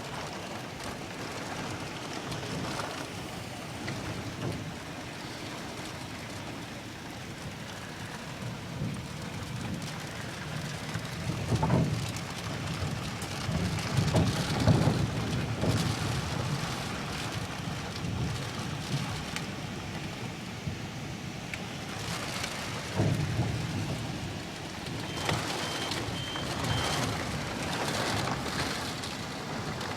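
Steady rain from a thunderstorm, with low rumbles swelling a few times, loudest near the middle.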